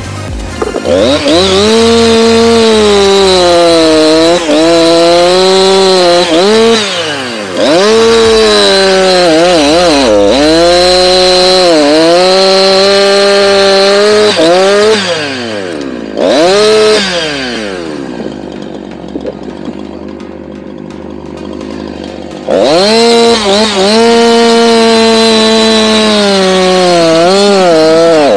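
Husqvarna 346XP two-stroke chainsaw at full throttle cutting through a dead tree trunk, its pitch sagging and recovering again and again as the chain bites into the wood. A little past the middle it drops to idle for about four seconds, then is revved back up and cuts again.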